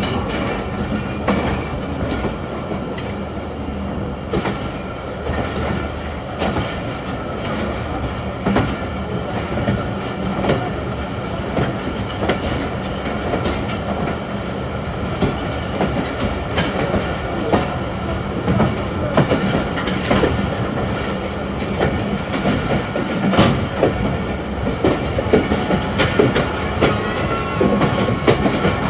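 Passenger train running on its rails, heard from aboard: a continuous rumble with a steady run of wheel clicks over the rail joints, as the Tezgam Express pulls out of a station.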